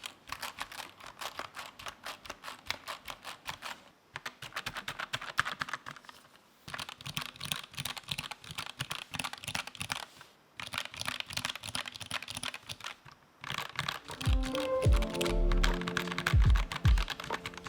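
Fast typing on a GK64XS 60% keyboard with lubed, filmed Gateron Yellow linear switches and PBT doubleshot keycaps: a dense patter of key presses in runs broken by short pauses. Music with a bass line comes in about three-quarters of the way through and is louder than the typing.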